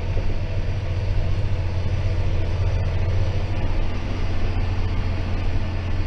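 John Deere 6190R tractor's diesel engine running steadily under load while pulling a plough through the soil, heard from inside the cab as a constant low drone.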